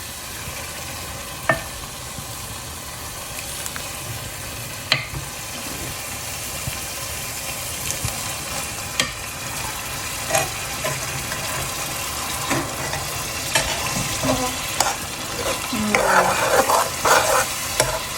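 Cooked chickpeas being stirred into a sizzling ghee tadka in a pan. There is a steady sizzle, with a few sharp clinks of the spoon against the pan, and busier scraping and knocking near the end.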